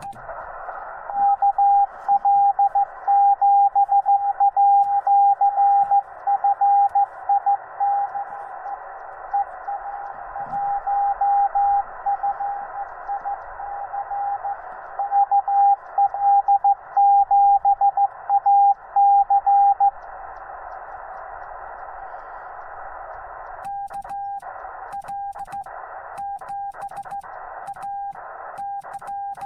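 Morse code from a Yaesu FT-891 transceiver: a single beep tone keyed in dots and dashes over a band of receiver hiss. The keying is loud through most of the first twenty seconds, then fainter keying follows, with the hiss dropping in and out near the end.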